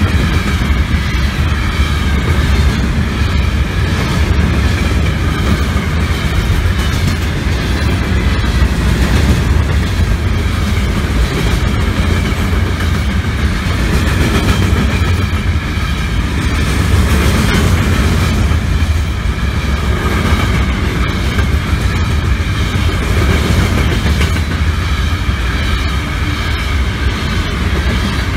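Freight train cars rolling past at close range: a steady, loud rumble of steel wheels on rail with clickety-clack over the rail joints, and a high, wavering metallic whine above it.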